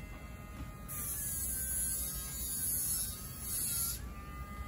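Dremel MiniMite cordless rotary tool with a Diamagroove bit grinding a small dog's toenail: a steady motor buzz whose pitch dips and rises as the bit is pressed to the nail. A hissing grind runs from about a second in and stops about four seconds in, leaving the motor running free.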